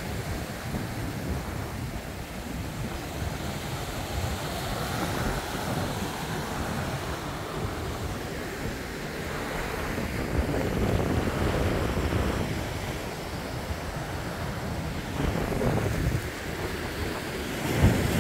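Sea surf washing against a rocky shore, rising and falling in slow swells, with wind rumbling on the microphone.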